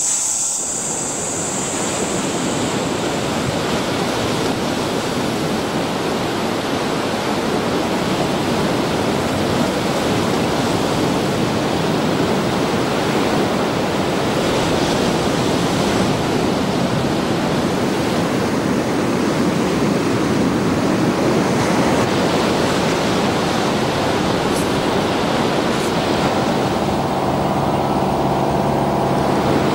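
A steady, even rushing noise. A high insect trill fades out in the first couple of seconds, and a low droning hum with several tones comes in near the end.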